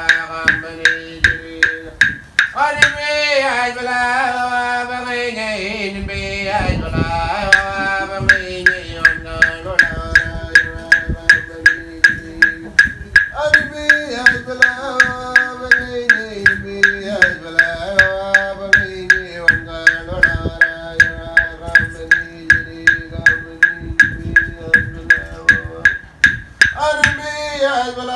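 Aboriginal corroboree song: a single voice chanting in falling, stepwise phrases over clapsticks struck steadily, about two to three sharp ringing clicks a second.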